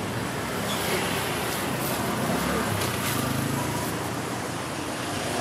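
Roadside traffic noise, steady, with a motor vehicle's low rumble swelling and fading around the middle.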